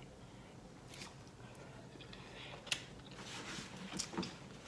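A person chewing food close to the microphone, faint soft chewing with scattered wet mouth clicks and smacks, most of them in the second half.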